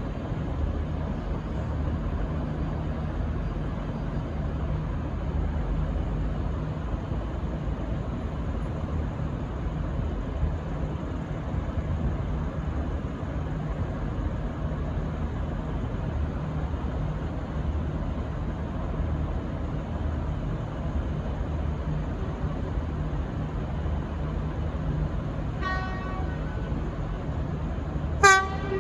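VLocity diesel railcar idling at the platform with a steady low engine hum, then two short horn toots near the end, the second louder.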